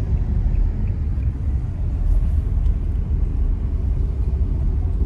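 Steady low rumble of a car's engine and road noise heard from inside the cabin while driving slowly.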